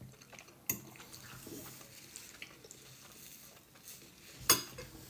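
Quiet eating sounds: soft chewing, a faint click at under a second in, and a short sharp rustle near the end as a paper napkin is handled at the mouth.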